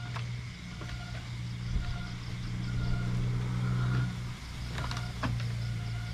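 A steady low mechanical hum, like a running motor, with short high chirps about once a second and a few light knocks.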